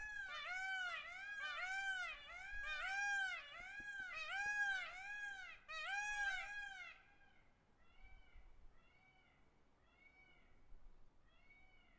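Peacock giving a rapid series of loud calls, about two a second, each rising then falling in pitch. About seven seconds in, the calls go on much fainter and more spaced out.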